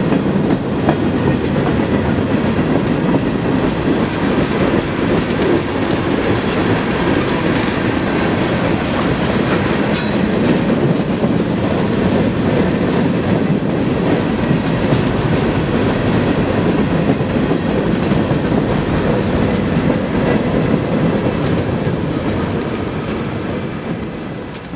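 Freight cars of a mixed freight train (tank cars, autoracks, centerbeam flatcars) rolling past close by, with a steady noise of steel wheels running on the rails. There is one sharp metallic click about ten seconds in, and the sound fades out near the end.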